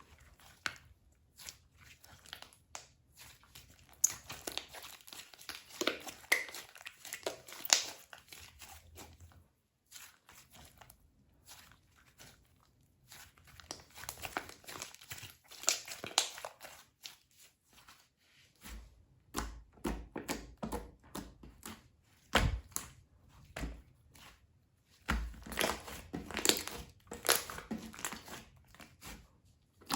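Slime being stretched, pressed and squeezed by hand, making crackly, sticky popping and clicking in bursts, with a few soft low thumps in the second half.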